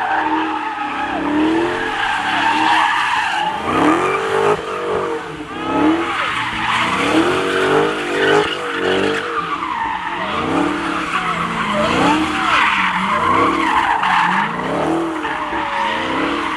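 A Dodge Charger doing donuts: the engine revs up and down over and over, about once a second, over continuous tire squeal as the rear tires spin and smoke.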